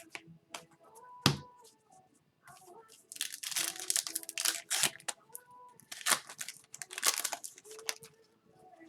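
Hockey cards and their foil packs being handled: crinkling, rustling and sliding, with a sharp snap about a second in and a denser stretch of rustling from about three seconds in until near the end.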